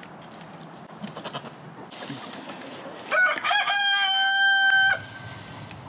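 A rooster crowing once, about three seconds in: a few short rising notes, then one long held call lasting nearly two seconds.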